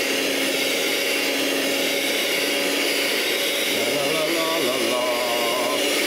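Electric mixer running steadily at an even speed, its beater whisking a thin cake batter of flour, sugar and milk.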